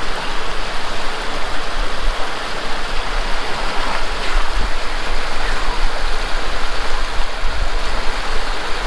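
Mountain stream rushing steadily, a loud, even wash of water noise.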